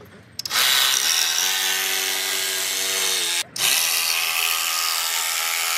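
Cordless jigsaw sawing through plywood, a steady motor buzz with the blade rasping the wood. It starts about half a second in and stops briefly about three and a half seconds in before cutting again.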